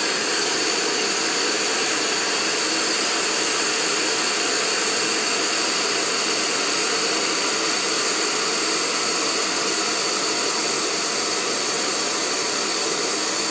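Optimus Crux isobutane-propane canister stove burning at full flame, a steady, even hiss under a pot of water that is coming up to a boil.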